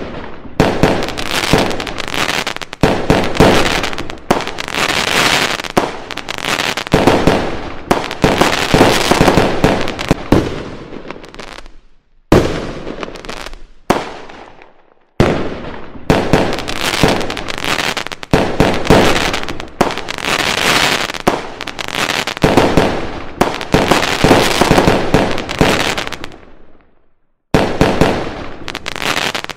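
Fireworks going off in quick succession, each loud bang trailing off into crackling that fades away. Near-silent breaks come about twelve, fifteen and twenty-seven seconds in.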